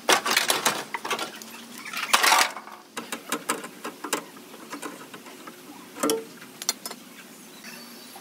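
Irregular clatter of metal knocks and clicks from car-body panel work, in dense runs near the start and about two seconds in, then a few separate knocks.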